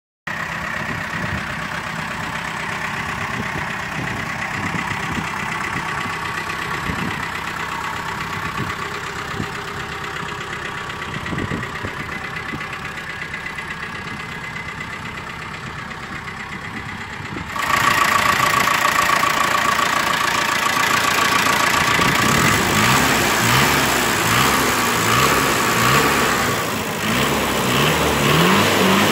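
Toyota BJ40's 3.0-litre four-cylinder diesel engine idling steadily. About two-thirds of the way in it becomes louder, and in the last several seconds it is revved in repeated short blips, the pitch rising and falling each time.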